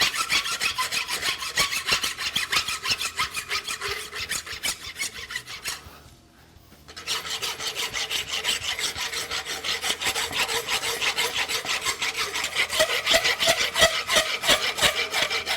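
A file or rasp worked back and forth in rapid strokes over a forged steel horseshoe, with a faint metallic ring from the shoe. This is the finishing stage, cleaning up the edges of a tooled and fullered front hunter shoe. The strokes stop for about a second partway through, then start again.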